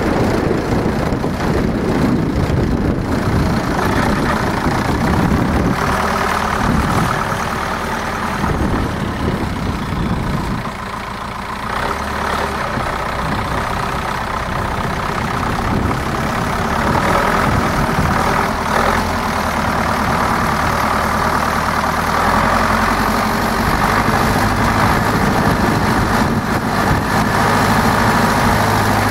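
Zetor 7245 tractor's four-cylinder diesel engine running as it reverses a tipping trailer, its note changing with the manoeuvring. In the last few seconds the engine holds a steady note while the trailer body tips up.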